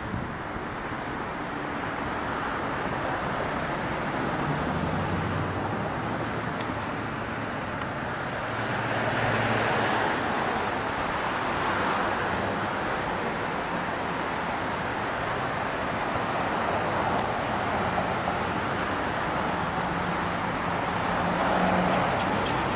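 Road traffic: cars passing, their tyre noise swelling and fading twice, over a low engine hum.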